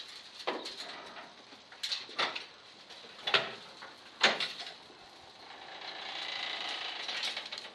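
A steel car rotisserie and the stripped Holden VK Commodore body shell on it being turned by hand: several sharp metal clunks and clicks from the pivots and shell, then a longer scraping sound that swells and fades near the end.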